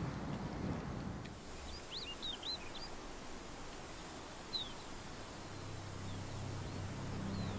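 Tundra ambience: a soft, even wash of wind with a quick run of short, high, swooping bird chirps about two seconds in and a few single chirps later. A low steady hum fades in over the second half.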